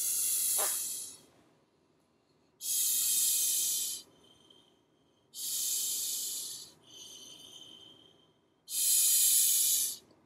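Breath blown hard through a plastic inflation nozzle into a Tiny Wubble Bubble Ball to inflate it: four long hissing puffs of air, roughly every three seconds.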